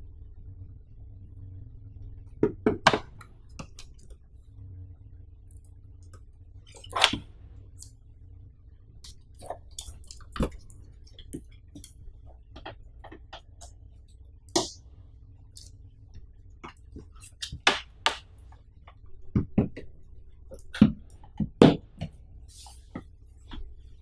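Scattered clicks, taps and knocks of a Changhong 29-inch LED TV being handled, lifted and laid face-down on a wooden floor, its plastic casing and cable bumping. A steady low hum runs underneath.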